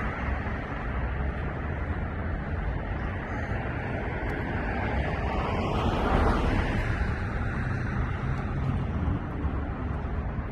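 Road traffic going by, with one vehicle swelling past and fading about six seconds in, over a steady low rumble.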